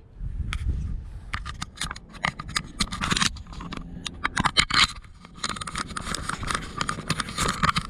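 Handling noise on a body-worn camera: cloth brushing and scraping against it, with many irregular clicks and taps, turning into a denser, steadier rustle about halfway through as the wearer walks.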